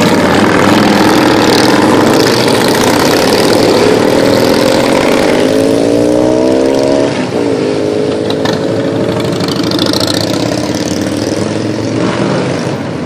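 Several motorcycle engines run loudly as a group of motorcycles rides past. About five seconds in, one engine's pitch climbs, then it falls away sharply at about seven seconds.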